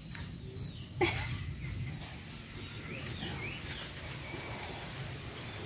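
Outdoor ambience with birds chirping briefly in short gliding calls, and a short sharp sound about a second in.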